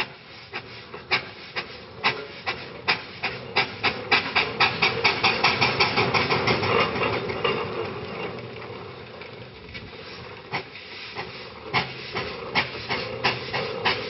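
Aveling & Porter compound steam road roller working, its exhaust beating sharply over a hiss of steam. The beats quicken from about two to about five a second over the first few seconds, ease off around the middle, then pick up again near the end.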